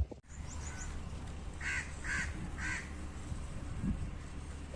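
Three short bird calls, like crow caws, about half a second apart, over a steady low hum.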